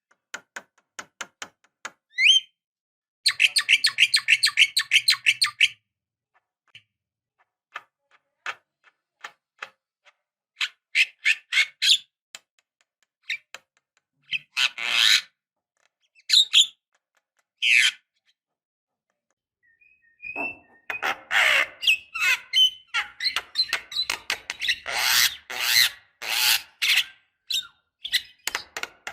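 Javan myna (jalak kebo) calling: a run of sharp clicks, a buzzing rattle a few seconds in, then separate whistled and harsh notes, building to a dense stretch of chattering calls over the last third.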